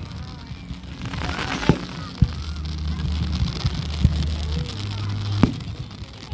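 Fireworks display: a string of bangs from bursting shells, the loudest about five and a half seconds in, with a short crackling burst early on, over a steady low rumble.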